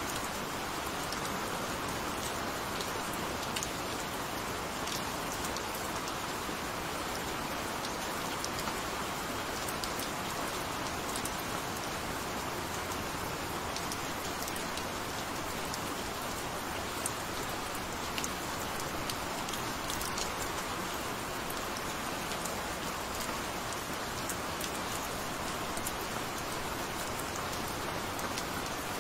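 Gentle, steady rain falling: an even hiss with scattered single drop ticks.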